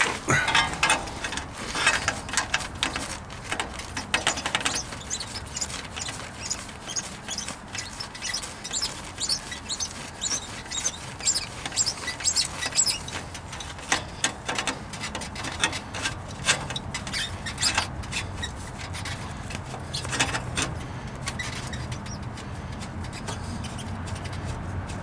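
Steel exhaust pipes squeaking and clinking as the slip-joint end of a resonator pipe is twisted and worked on a 2006 Toyota Corolla, with many short metal clicks and scrapes and high squeaks that are thickest in the first half.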